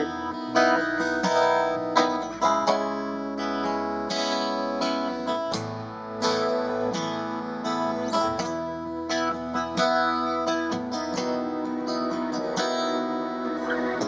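Acoustic guitar strummed in a slow, steady rhythm, the instrumental intro to a worship song, with chords ringing on between strums.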